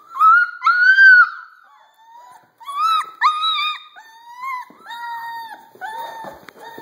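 Puppies yelping and whining: a run of short high-pitched cries, several voices overlapping in the second half.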